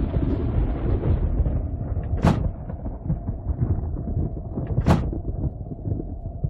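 Two pickup-truck doors slamming shut, about two and a half seconds apart, over a steady low rumble.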